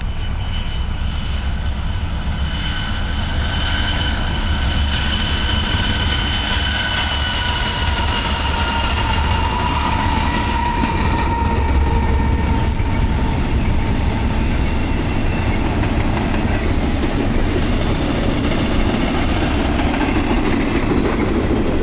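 BNSF diesel freight locomotives rolling past with a heavy low rumble and several high whining tones that slowly fall in pitch over the first half. Then container cars roll by with a steady rail rumble that grows heavier near the end.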